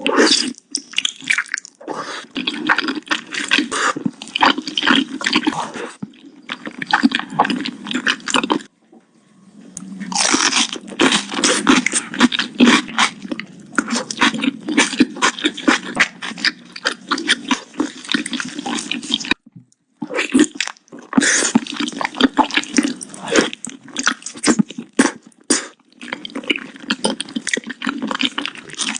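Close-miked mukbang eating sounds: a person chewing beef, a dense run of wet clicks and squelches from the mouth. It breaks off briefly twice, about a third and two-thirds of the way through.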